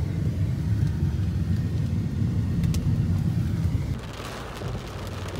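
Low rumble of road and wind noise inside a moving vehicle. About four seconds in it drops to a quieter low hum, with the hiss of heavy rain on the vehicle.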